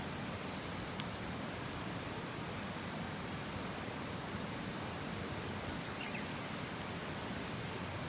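Steady, even hiss with a few faint, sharp ticks scattered through it.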